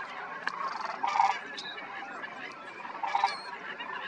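A flock of sandhill cranes calling over a busy chorus of bird calls, with two louder rolling calls standing out, about a second in and again about three seconds in.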